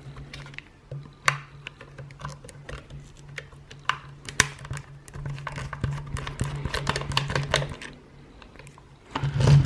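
Small screwdriver clicking and scratching as screws are backed out from under the base corners of a portable speaker, with a dense run of quick clicks about five seconds in, over a steady low hum. A louder knock of handling comes near the end.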